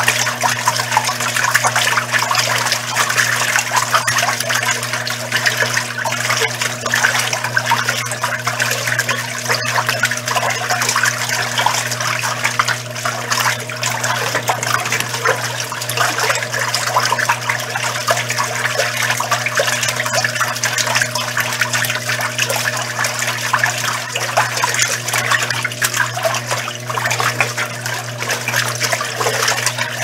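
Arno Lavete Intense Delicate 10 kg semiautomatic top-load washing machine agitating a duvet. Water sloshes and churns steadily in the tub over a constant motor hum.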